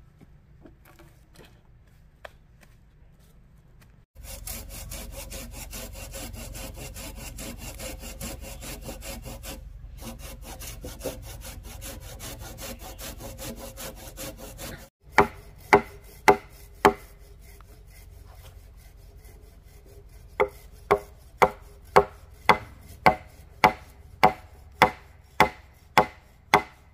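Hand saw cutting through a wooden log in steady, rapid strokes, which stops abruptly; then sharp chopping blows on wood, a few spaced ones at first and then a regular run of about two a second, as a blade chops at a wooden stake.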